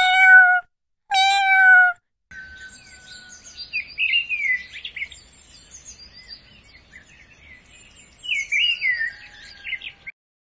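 A domestic cat meows twice in quick succession, each call a little under a second long. Then birds chirp and whistle in short repeated phrases, with a faint steady high note under them.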